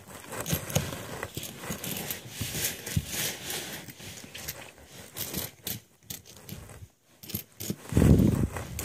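Pennies being pushed and slid around on a textured tabletop by fingertips: scattered small clinks of coin on coin and light scraping. Near the end there is a louder, lower rubbing noise lasting about half a second.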